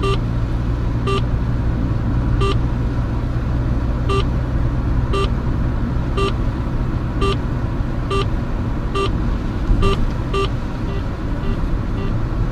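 Snooper Pantera speed-camera detector sounding its alert for a Gatso speed camera: short two-tone beeps that come closer together, from about one every second and a half to about two a second, turning fainter near the end. Steady car engine and road noise inside the cabin underneath.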